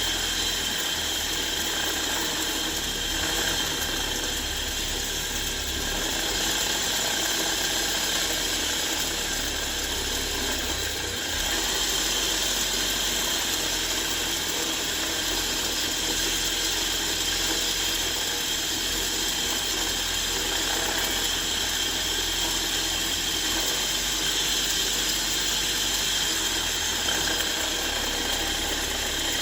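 Bench grinder running steadily with a buffing wheel while a steel spanner is pressed against it for polishing, with a faint steady whine; the sound briefly shifts about eleven seconds in.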